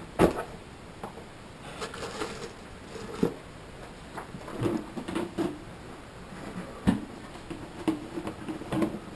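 Handling noises: scattered sharp knocks and clicks, the loudest just after the start, with rustling of gear in between.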